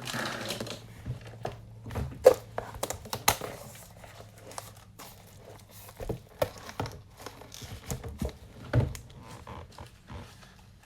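Plastic card packaging being handled, crinkling, with irregular clicks and taps throughout.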